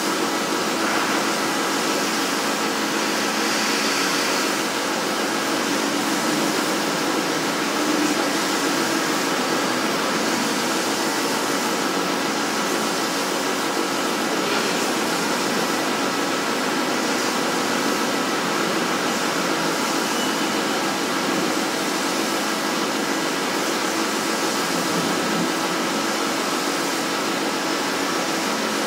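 CNC plasma cutter's torch cutting thick steel plate: a loud, steady hiss that holds constant without a break.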